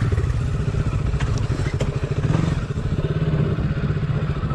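Motorcycle engine running hard at steady revs under load, pulling up a steep off-road climb, with a few light knocks about a second or two in.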